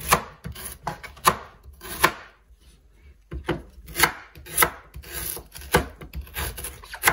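Chef's knife cutting a beet into pieces and striking a wooden cutting board: about ten chops at an uneven pace, with a short pause in the middle.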